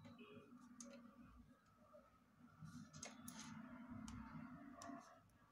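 Faint scratching of an oil pastel crayon being rubbed across drawing paper, with a few light clicks about three seconds in.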